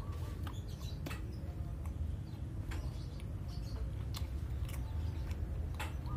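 Mouth sounds close to the microphone: irregular wet clicks and smacks as fingers are put to the lips, over a steady low hum.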